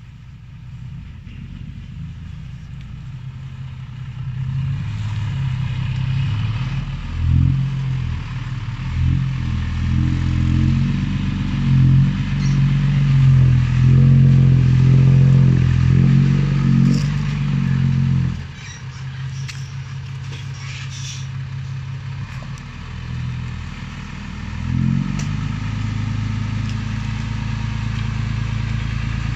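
Hino dump truck's diesel engine running under load, revving up and down in steps and growing louder, then dropping suddenly about 18 seconds in to a steadier, lower run while the tipper bed is raised.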